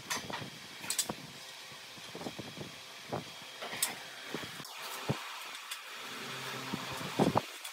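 Irregular light knocks and clicks of wooden pieces and hand tools being handled on a workbench, over a faint steady hiss, with two louder knocks close together near the end.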